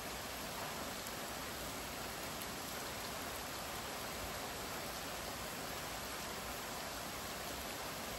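Steady rain falling, an even, unbroken hiss of drops.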